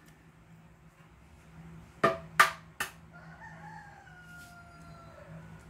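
Three sharp knocks in quick succession, then a rooster crowing in the background: one long call that falls slightly in pitch near its end.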